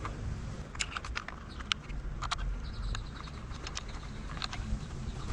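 Scattered light clicks and ticks, irregular and a few per second, of hands and a small metal Torx driver working at an e-bike's plastic battery mounting plate.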